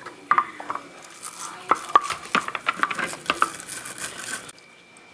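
Stiff-bristled brush scrubbing a drill's metal gear housing in a tub of soapy water, with splashing and a string of sharp knocks as the part is handled against the tub; it stops abruptly near the end.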